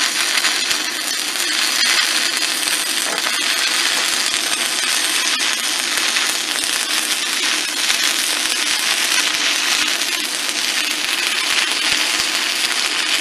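Stick-welding arc of a 1/8-inch E6010 electrode on steel: a steady, loud crackling hiss that cuts off suddenly at the very end as the arc is broken. The arc holds without going out while the whole rod is burned down.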